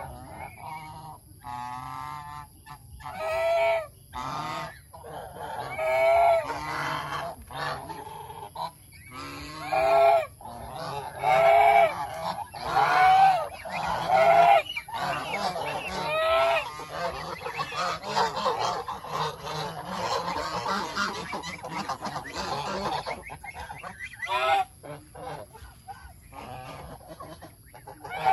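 A flock of domestic geese honking: loud, separate honks through the first half, then many birds calling over one another.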